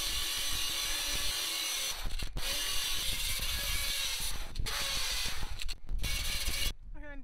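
A handheld power sander grinds paint and rust off a steel yacht transom. It is a steady, harsh rasp with short dips as the tool is lifted or moved, and it cuts off near the end.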